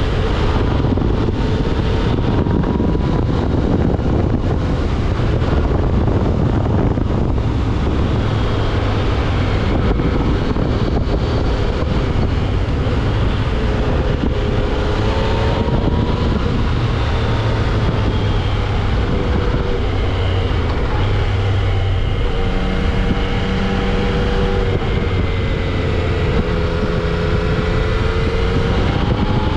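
Yamaha XSR900's inline-three engine through its stock exhaust, a mild sewing-machine-like note rising and falling with the throttle, under a steady rush of wind on the microphone.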